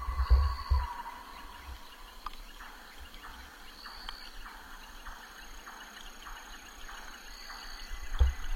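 Insects calling in a steady pulsing rhythm, with a short high chirp repeating about every three and a half seconds.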